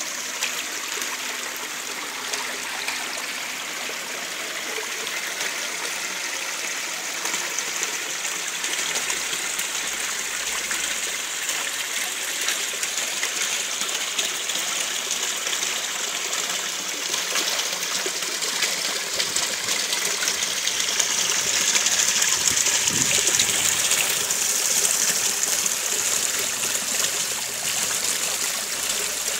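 Water spilling over the stone ledges of an artificial rock cascade fountain and splashing into the pool below, a steady rushing trickle that grows louder about two-thirds of the way through.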